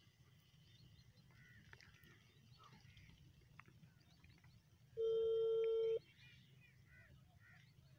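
Mobile phone call tone: one steady beep lasting about a second, starting about five seconds in, as a call is placed on the handset.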